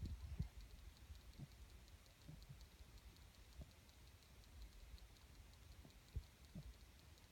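Near silence: a sleeping puppy breathing quietly, with a few faint, soft low snuffles spread through, under a faint even ticking of about four a second.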